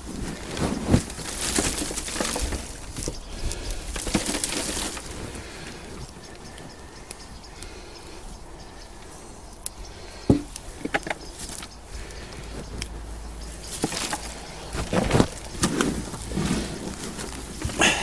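Hands rummaging and scraping through potting compost, with irregular rustling stretches and a few sharp knocks, the clearest about ten seconds in.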